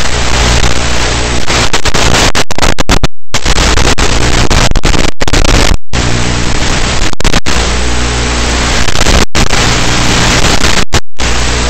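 FPV model plane's motor and propeller running steadily, mostly buried under loud hissing static from the onboard audio feed, which cuts out for a moment several times.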